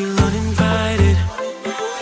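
Background pop music with deep bass notes and a steady drum beat.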